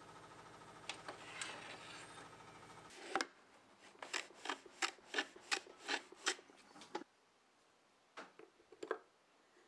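A steady hum, then a hand plane shooting the end of a board on a wooden shooting board: one knock, then about eight quick strokes, some three a second. Near the end there are a couple of short scraping sounds from a marking gauge against the wood.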